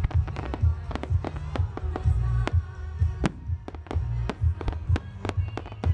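Fireworks going off in quick succession, many sharp cracks and pops over repeated low thumps, with music playing behind.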